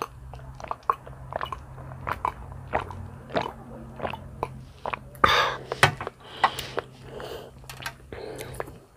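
Close-miked gulping and swallowing as milk is drunk from a glass: a run of short wet clicks and gulps. About five seconds in come a few louder noisy sounds.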